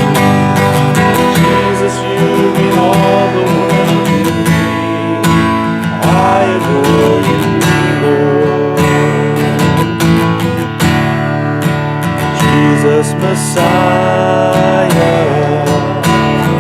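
Worship music played live: an acoustic guitar strummed in a steady rhythm, with other sustained instruments under it and a wavering melody line on top, between sung verses.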